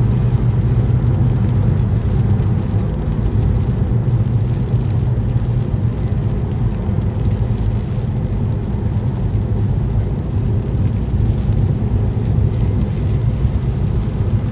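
Steady road noise inside a moving car on a highway: a constant low drone from the engine and tyres under an even hiss.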